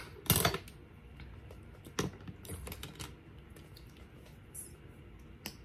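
Scattered light clicks and taps of small makeup tools and items being handled, with a louder knock about half a second in.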